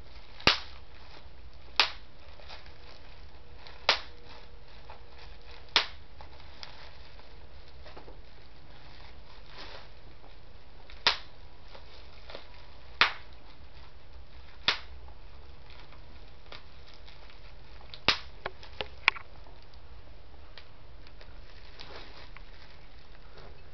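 Bubble wrap popped by hand, one bubble at a time: sharp single pops at irregular intervals of one to a few seconds, with a quick run of three or four about three-quarters of the way through. Fainter crinkles and small clicks of the plastic sheet come between the pops.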